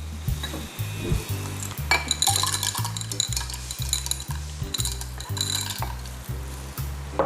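A utensil stirring in a cooking pot, with bursts of scraping and clinking about two seconds in and again about five seconds in, over background music with a stepping bass line.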